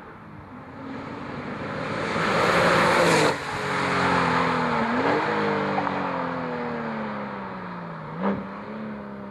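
Porsche 997.2 Turbo's 3.8-litre twin-turbo flat-six on its stock exhaust, driving past. It grows louder to a peak about three seconds in, where the note breaks off briefly, then fades slowly as the pitch drifts down.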